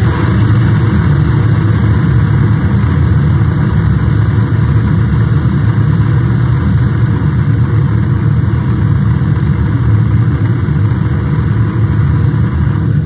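A loud, steady rumbling noise, dense and unbroken, heaviest in the low end, with no speech or distinct events.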